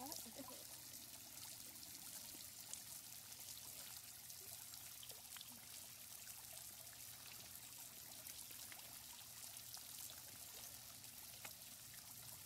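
Faint, steady trickle of flowing water with a few small ticks.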